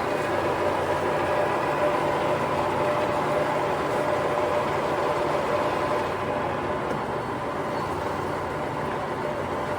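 Lion C13 MB gap-bed engine lathe running under power, its geared headstock giving a steady whine over mechanical noise, with the carriage driven along by the half nut for threading. The sound eases a little about six seconds in.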